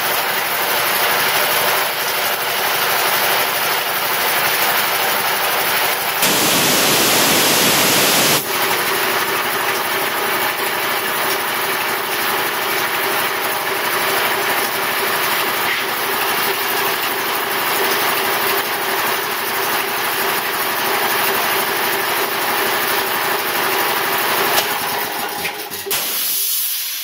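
Quincy QR-325 belt-driven air compressor running steadily under full load as it pumps up toward cut-out pressure, its cast-iron 1725 RPM GE motor drawing about 24 amps, slightly above its 23-amp rating. About six seconds in, a louder rush of noise lasts about two seconds. Near the end the compressor shuts off with a short hiss and runs down.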